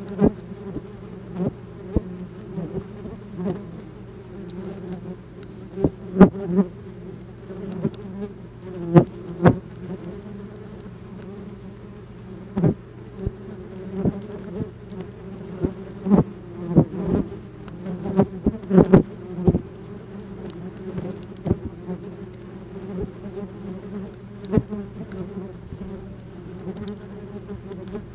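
Wasps buzzing in a steady drone close to the microphone, with irregular sharp taps and knocks as they strike the camera housing, most of them between about six and twenty seconds in.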